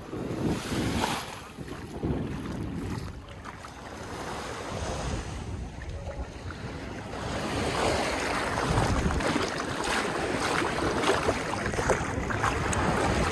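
Small sea waves washing and lapping on a sandy shore, with wind buffeting the phone's microphone; the wash grows louder and more crackly about halfway through.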